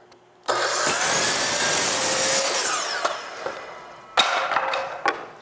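DeWalt miter saw starting about half a second in and crosscutting an eastern white pine board, then the blade winding down with a falling whine. A sharp knock comes about a second after the saw dies away, and a lighter one near the end.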